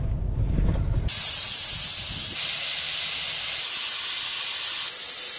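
Air hissing steadily out of a 4x4's tyre valve as the tyre is let down. It starts suddenly about a second in, after a brief low rumble inside the vehicle's cab, and shifts in tone a few times.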